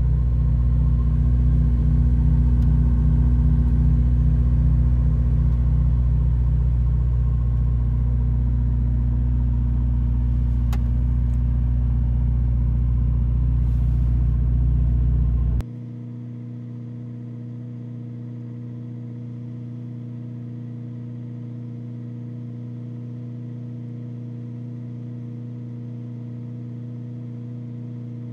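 Ferrari SF90 Stradale's twin-turbo V8 idling steadily with a deep, even rumble. About 15 seconds in the sound drops suddenly to a much quieter, steady idle hum.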